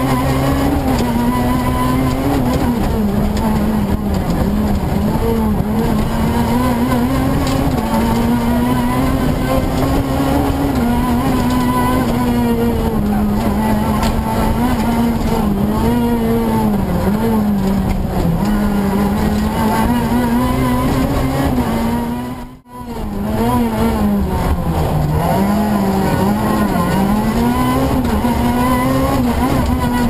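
Renault Clio R3 Maxi rally car's 2.0-litre four-cylinder engine heard from inside the cabin at full stage pace, revs rising and falling continuously. The sound drops out for a split second about two-thirds of the way through.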